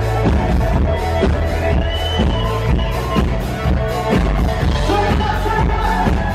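Live band playing upbeat pop music through a PA, with a steady dance beat and heavy bass, and melodic lines that rise and fall above it.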